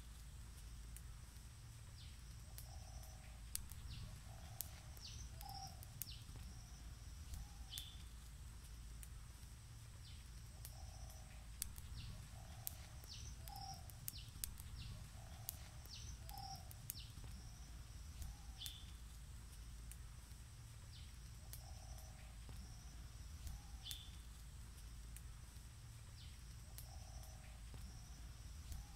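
Faint birdsong: one bird repeats a low note in short runs of two or three, and another gives higher chirps that drop in pitch. Scattered sharp crackles come from the wood fire burning under the pot.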